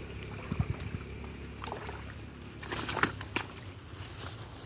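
Shallow stream water sloshing as hands grope among submerged sticks, dry leaves and stones, with a few low thumps about half a second in and several sharp clicks around three seconds in.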